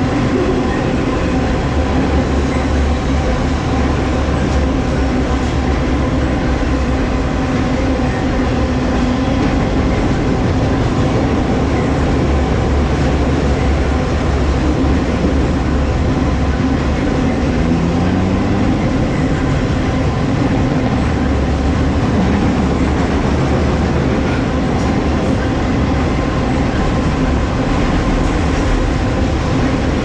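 Freight train of autorack cars rolling across a steel railway bridge overhead: a steady, loud rumble and rattle of wheels and cars on the bridge.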